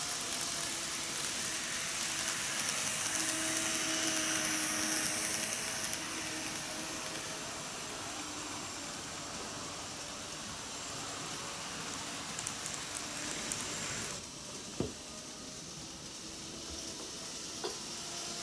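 N gauge model electric trains running on KATO Unitrack: a steady whirring motor hum and wheels rolling on the rails, louder in the first few seconds as a train passes close by. The sound drops suddenly about fourteen seconds in, followed by a sharp click.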